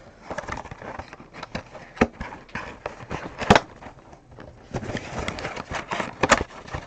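Cardboard trading-card boxes being handled and opened: scattered knocks and clicks over soft rustling, the sharpest about two, three and a half and six seconds in.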